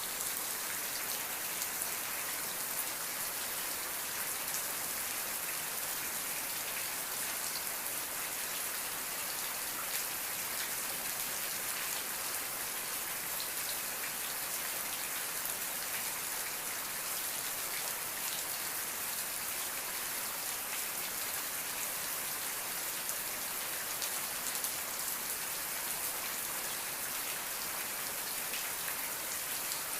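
Steady rain falling, a dense even hiss of drops with fine drop ticks on a surface.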